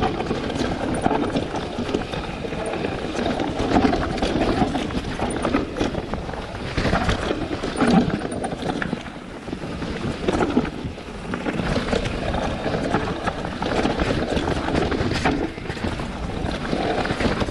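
Enduro mountain bike descending a rough, rocky trail: tyres crunching and the bike rattling over stones in a steady run of clicks and knocks, with wind rumbling on the microphone.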